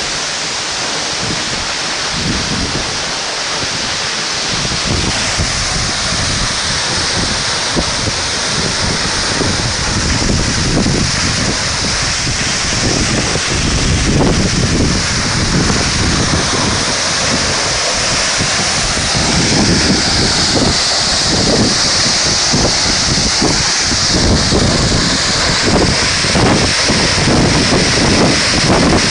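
Waterfall rushing in a loud, steady roar of falling water, with wind buffeting the microphone in irregular low gusts.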